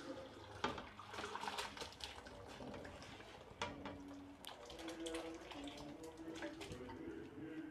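Beef and broth poured from a pressure cooker into a metal karahi: liquid splashing and pouring, then pieces of meat sliding in, with scattered small clicks and knocks.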